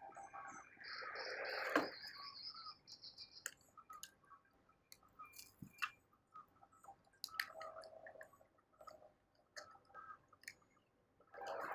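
Quiet outdoor background: a bird gives a quick series of short, high chirps in the first few seconds, then scattered faint clicks and taps.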